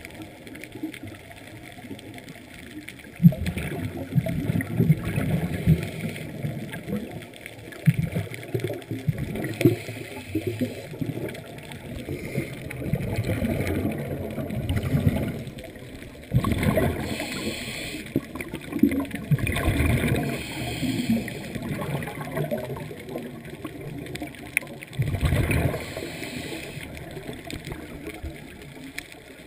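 Underwater scuba breathing heard through a camera housing: bubbles from regulator exhalations gurgling and rushing past in bursts every few seconds.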